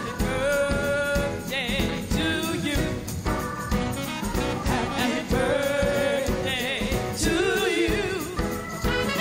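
Live band music with a steady beat, and a woman singing long, gliding notes over it.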